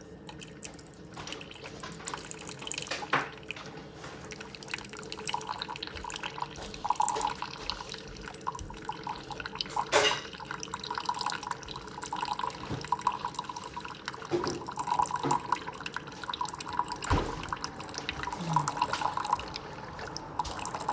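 Water running and splashing in an irregular stream, with a few sharp knocks and clunks of things being handled.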